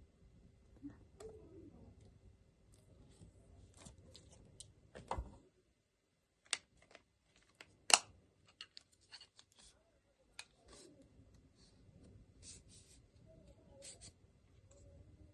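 Plastic parts of a selfie stick tripod being handled, with scattered clicks and taps. The sharpest click comes about eight seconds in.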